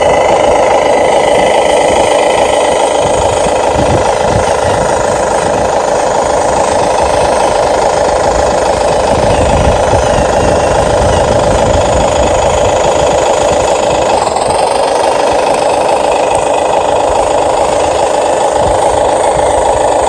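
Steady, rapid mechanical rattling whir of radio-controlled toy construction models' electric motors and gearboxes working.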